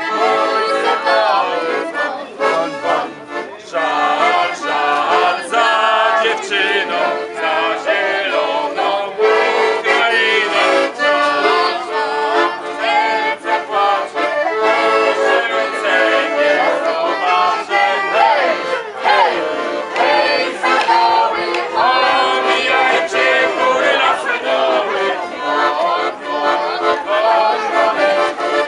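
Accordion playing a folk song, with a group of people singing along.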